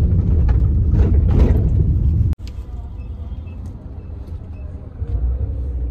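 Low steady rumble of engine and road noise heard from inside a moving car's cabin, loud for the first two seconds or so, then dropping abruptly to a quieter rumble.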